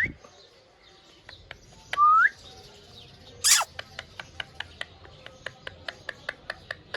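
Green parrot making a short rising whistle about two seconds in, then a sharp chirp, followed by a run of quick, soft, evenly spaced clicks, about four a second.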